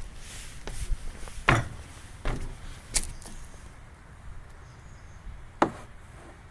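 Footsteps on wood-chip mulch: three sharp steps a little under a second apart, then one more sharp knock about five and a half seconds in, over a low rumble.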